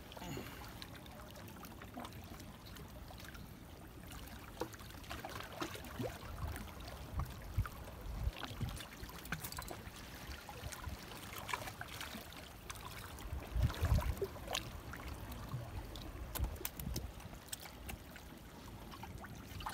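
Small waves lapping and splashing against the rocks at the water's edge, with scattered low thumps and light clicks.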